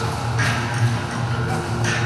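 Music with a heavy bass line, with two short sharp sounds about a second and a half apart.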